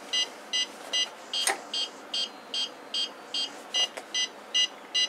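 The Nova SpotMicro3 robot dog's buzzer beeping in a steady run of short, high beeps, about two and a half a second, signalling that its PIR motion sensors are picking up a person moving near it. A single sharp knock sounds about a second and a half in.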